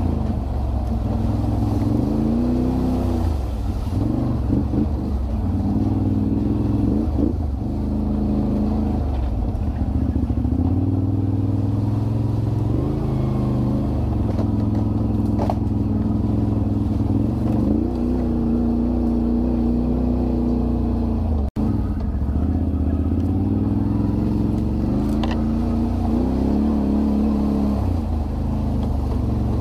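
Can-Am Renegade 1000 ATV's V-twin engine running while riding, its pitch rising and falling as the throttle opens and closes. The sound drops out for an instant about two-thirds of the way through.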